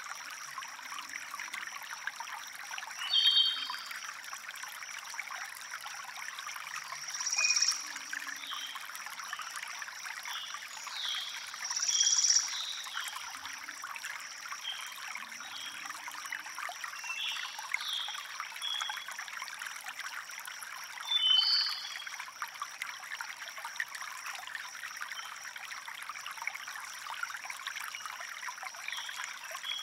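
Shallow river water flowing and trickling in a steady hiss, with short high bird chirps now and then, a few of them louder.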